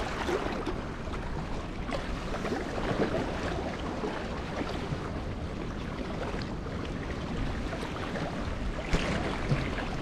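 Small waves washing and splashing against the jetty's boulders, with wind buffeting the microphone in a steady low rumble.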